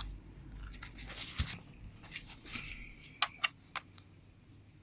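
A plastic guitar pick prying along the seam of a notebook's plastic bottom cover: light scratching and scraping, with a few sharp clicks about three seconds in as the cover's clips start to give.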